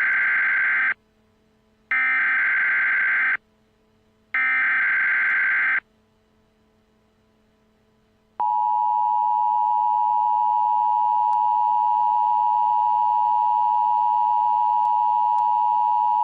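Emergency Alert System tones: three short, harsh bursts of SAME header data about a second apart, then, after a gap of a couple of seconds, the steady two-tone EAS attention signal held for about eight seconds. Together they announce that an emergency message is about to be read.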